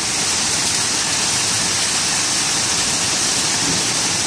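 Hail and heavy rain pouring down together in a dense, steady hiss.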